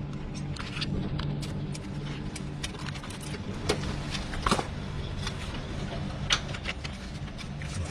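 Scattered sharp metallic clicks and knocks of hand tools working on a car, a few louder than the rest, over a steady low mechanical hum.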